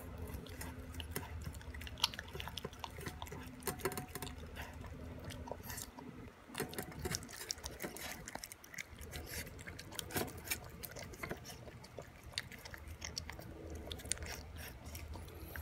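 Boston Terrier puppy eating raw beef and vegetables from a stainless steel bowl: steady chewing with many irregular sharp clicks.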